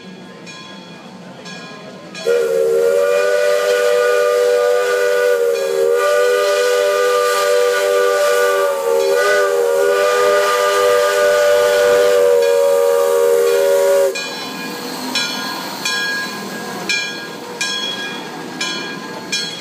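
Steam whistle of a 1912 Lima-built Shay geared steam locomotive, blown in one long chord of several tones held for about twelve seconds, starting about two seconds in and wavering briefly twice. After it stops, the locomotive's repeated chuffs and clanks come over a bed of hissing steam as it rolls past.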